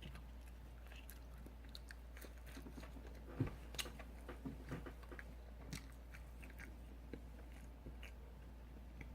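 Close-miked chewing of fried food, with faint scattered crunches and wet mouth clicks, a couple of louder bites a few seconds in.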